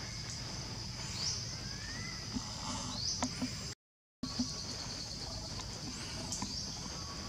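Tropical forest ambience: a steady high insect drone with short rising chirps every couple of seconds over a low rumble. The sound cuts out to complete silence for about half a second midway.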